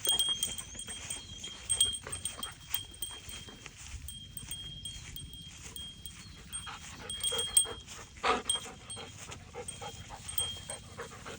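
Dog panting and whimpering, with a short louder cry about eight seconds in.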